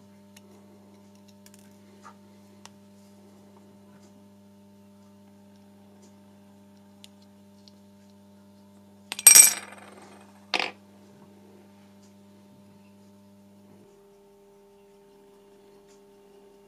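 Two sharp metallic clinks of small metal parts or a tool, about nine and ten and a half seconds in, the first ringing briefly. Underneath there is a faint steady hum and a few light ticks of handling.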